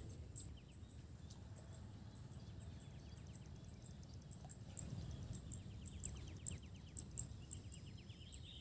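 Quiet open-air ambience: a low steady rumble with faint high chirps repeating throughout, and rapid ticking trills about three seconds in and again near the end.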